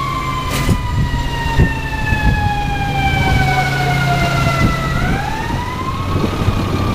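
A siren wailing, its pitch falling slowly for about five seconds and then rising again near the end, over the steady running of a heavy engine. There is a single metallic clank about half a second in.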